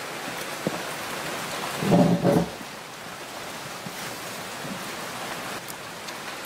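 Steady hiss of film-soundtrack ambience, with one short voiced sound, like a grunt or murmur, about two seconds in.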